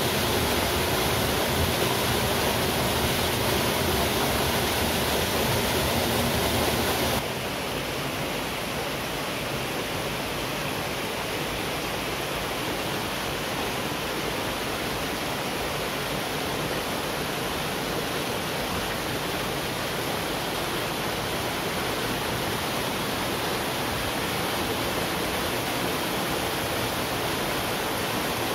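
Nanayo Falls, a waterfall, with its water rushing steadily. About seven seconds in the sound suddenly becomes a little quieter, with less low rumble.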